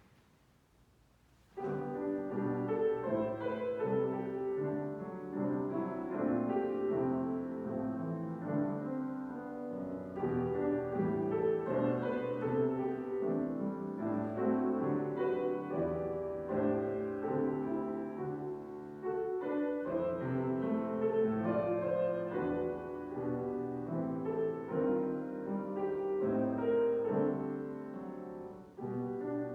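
Piano playing the instrumental introduction to a choral anthem in slow, sustained chords, starting about a second and a half in.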